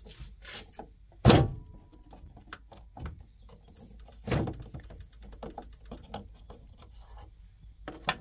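Knocks and clicks of a hand and screwdriver working at a boiler diverter valve as a new cartridge is pressed into its casing, with one loud knock about a second in and a smaller one a few seconds later.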